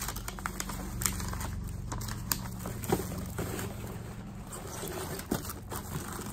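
Hands rummaging through a cardboard box of belongings: plastic bags and paper rustling and crinkling, with scattered light knocks as items shift.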